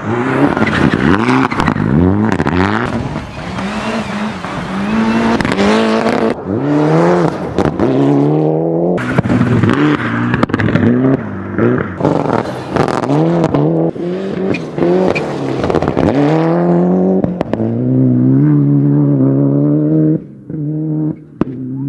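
Rally cars' engines revving hard through rising and falling gear changes as they are driven flat out on loose gravel, in a string of short passes that cut abruptly from one car to the next. Over the last few seconds an engine holds a steadier, even note.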